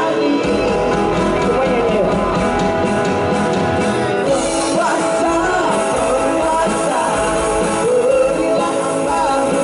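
A live rock band playing amplified electric guitars and drums, with singers singing over them.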